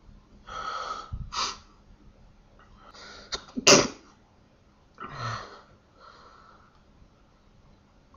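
A run of sneezes, several short bursts a second or two apart, the sharpest and loudest about three and a half seconds in.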